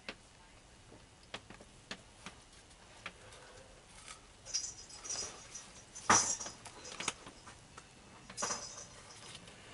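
Scattered light clicks and three short rustling, hissy bursts, the loudest about six seconds in: small objects being handled off camera.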